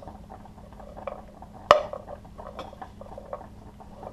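A utensil stirring and tossing chopped vegetables in a skillet: irregular small clacks and scrapes against the pan, with one sharper knock a little under two seconds in.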